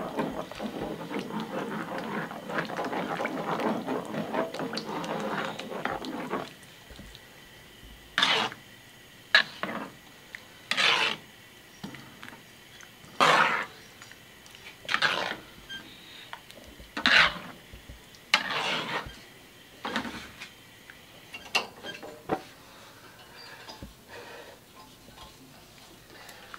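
Ladle stirring and scraping through a wok of thick lomi noodle soup: a steady rushing noise for about the first six seconds that cuts off abruptly, then about ten separate short scraping strokes a second or two apart.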